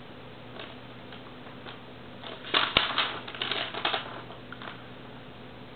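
Sheets of paper rustling and crackling as they are handled, a cluster of short rustles starting about two seconds in and lasting a couple of seconds, with one sharp click among them, over a faint steady low hum.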